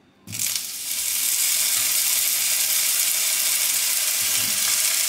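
Washed chanterelle mushrooms dropped by the handful into hot sunflower oil in a frying pan, sizzling. The sizzle starts suddenly about a third of a second in, at the first handful, and then stays loud and steady.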